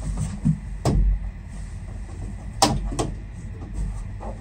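Sharp knocks and clicks from a TV and its metal swivel-arm wall mount being handled and pushed into place: one about a second in, then two quick ones close together near three seconds in, over a low rumble.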